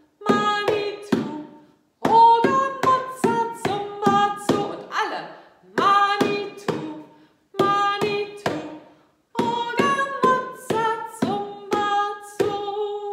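Hand drumming on an upturned plastic bowl used as a drum: a steady rhythm of open-handed strikes in short groups, each with a brief ringing tone.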